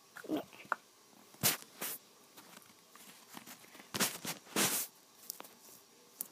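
Scattered rustles and soft knocks: a handful of short scuffs and clicks, with quiet between them.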